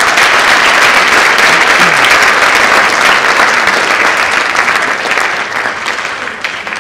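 Audience applauding, loud and steady, tapering off over the last couple of seconds.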